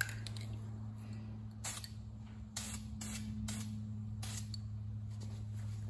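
Aerosol can of Dupli-Color 2-in-1 filler primer spraying in a string of short hissing bursts as a coat of primer goes on, over a steady low hum.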